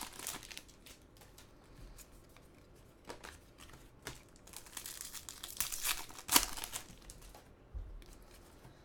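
Crinkling and rustling of trading-card pack wrappers being torn open and handled, in scattered short bursts that are busiest about five to six and a half seconds in.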